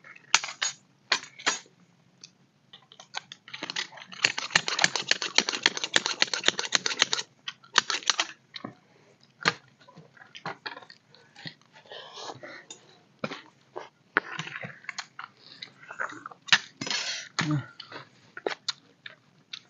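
Spoons clicking and scraping on plastic plates, with chewing, as two people eat noodles. There is a denser spell of scratchy noise from about four to seven seconds in.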